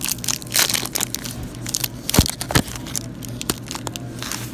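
Wrapper of a Nestlé Crunch candy bar crinkling and tearing as it is opened: a run of sharp crackles and rustles, over a steady low hum.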